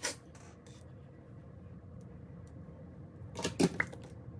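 Quiet room tone broken by sharp handling clicks and taps: one at the start and a short cluster about three and a half seconds in.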